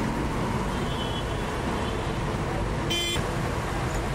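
Steady street traffic noise, with one short horn toot about three seconds in.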